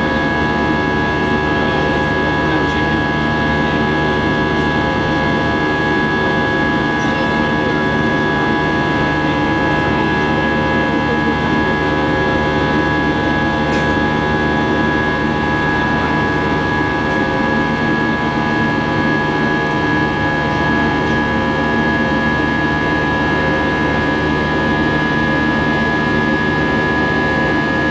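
Steady cabin noise inside an Airbus A320 airborne after takeoff: jet engines and rushing air, with several steady engine tones and one high whine standing out above the rest.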